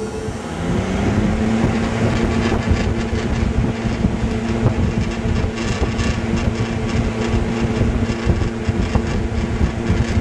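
Vintage Mathes Cooler cabinet fan with a new Universal electric motor starting up. Its hum rises in pitch over about the first second, then the fan runs steadily with a rush of air from the spinning blade. There is a little vibration, which the owner puts down to a loose autotransformer mounting.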